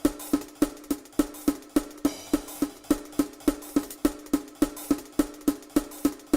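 Background music carried by a steady percussion beat of short, pitched wood-block-like knocks, about three to four a second.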